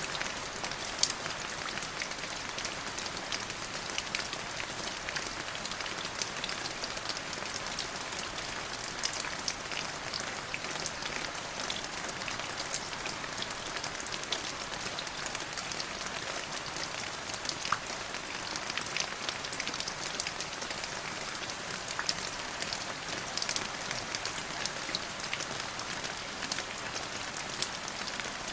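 Steady rain falling, a constant hiss with many individual drops ticking sharply against a hard surface.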